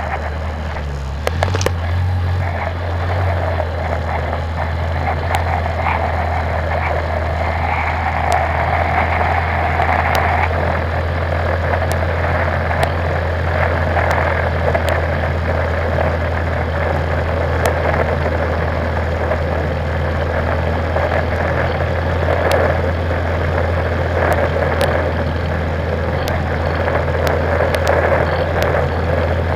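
Quad bike (ATV) engine running steadily while riding, with a constant low drone and scattered clicks and knocks.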